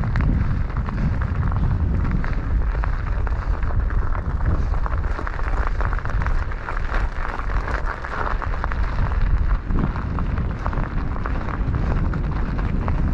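Wind buffeting the microphone in a steady low rumble, with scattered crackling clicks throughout.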